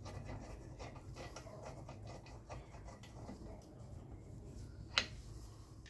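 Faint scattered clicks and scrapes of hand tools working on car parts, with one sharp click about five seconds in, over a steady low hum.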